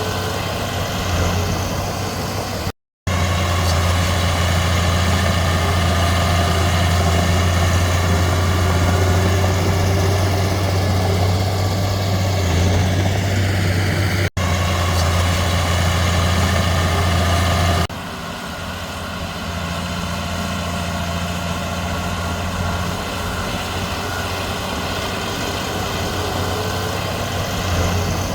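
Heavy diesel earthmoving machinery running steadily with a strong low drone. The sound is broken by two brief silent gaps at edit cuts, about three and fourteen seconds in, and drops somewhat in level around eighteen seconds in.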